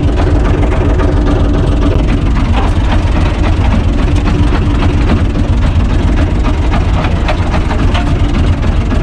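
Universal U445 tractor's diesel engine running steadily under load, heard from inside the cab, as the rear rotary tiller works the soil. Scattered light clicks and rattles sound over the engine.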